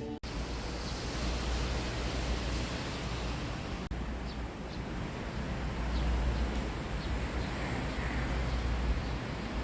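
Steady wash of sea surf with wind rumbling on the microphone, broken by a short gap about four seconds in.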